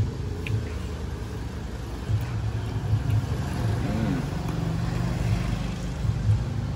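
Street traffic: a vehicle engine running with a low, steady drone, and a short tone that rises and falls about four seconds in.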